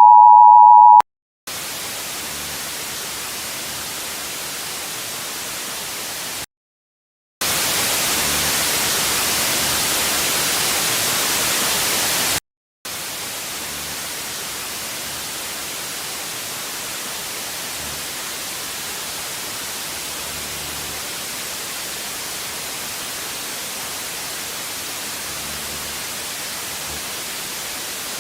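Steady static hiss like a dead television channel, dropping out twice for under a second, with a louder stretch between the two dropouts. In the first second a steady two-tone alert tone, the EAS attention signal, cuts off.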